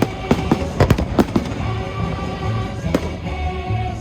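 Fireworks bursting over a music soundtrack: a rapid cluster of sharp bangs in the first second and a half, then a few scattered bangs while the music carries on.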